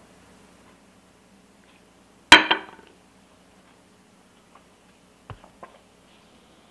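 A glass milk bottle set down on a hard tabletop: one sharp clink with a short ring about two seconds in, then two light knocks near the end.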